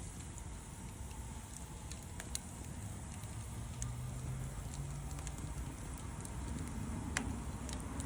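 Wood campfire burning with a steady low rumble of flame and a few sharp crackling pops from the burning wood, one of the loudest near the end.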